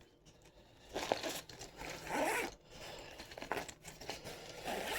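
A nylon chest rig and its packaging being handled: intermittent rustling and crinkling of fabric and plastic, starting about a second in.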